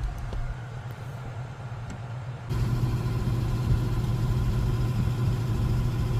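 Steady low mechanical hum like an idling engine, with a few faint clicks in the first two seconds; it turns abruptly louder about two and a half seconds in.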